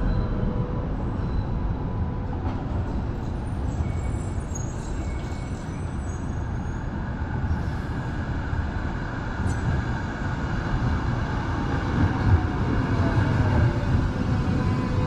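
Steady rumble of trams and road traffic, with a motor whine falling in pitch over the last few seconds as a vehicle slows.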